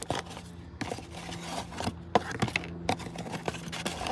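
A small cardboard parts box being opened and handled, with scattered light clicks, rustles and scrapes of cardboard and packaging as a new thermostat gasket is pulled out. A faint steady low hum runs underneath.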